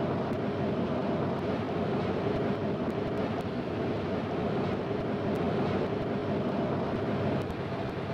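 Steady mechanical running noise with a constant hum, dipping slightly near the end.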